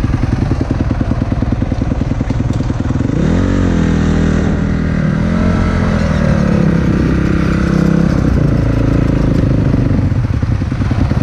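A motocross dirt bike engine, heard from the rider's own bike, running at a fast, pulsing idle. About three seconds in the engine revs up and holds a steadier, higher note for several seconds as the bike rolls slowly. Near the end it settles back to idle.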